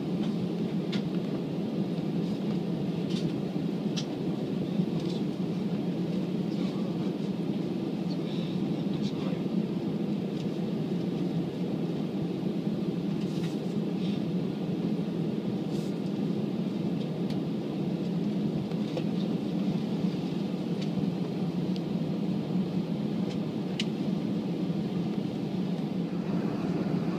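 Steady low cabin rumble inside a jet airliner taxiing after landing: the engines at idle and the wheels rolling on the taxiway, with a few faint ticks.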